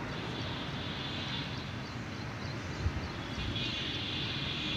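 Steady background rumble and hiss, with a faint high-pitched hiss that swells near the end and a single soft low thump about three seconds in.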